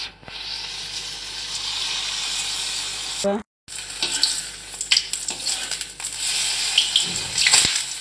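Vadas deep-frying in hot oil in a pan: a steady sizzle that drops out for a moment near the middle. In the second half, a steel slotted spoon clinks and scrapes in the pan as the vadas are turned.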